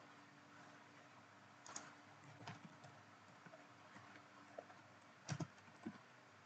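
Faint computer keyboard typing: a few scattered keystrokes, with two slightly louder clicks near the end.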